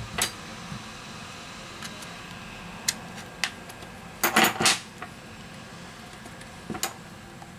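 Handling noise from a smartphone being taken apart: scattered sharp clicks, with the loudest a quick cluster of clatter about four and a half seconds in.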